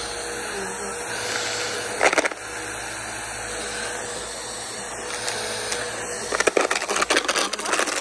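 Upright bagless vacuum cleaner running steadily with a constant whine while pushed over grass and bare dirt. A short burst of clattering about two seconds in and a run of rapid rattling clicks near the end as rocks and debris are sucked up.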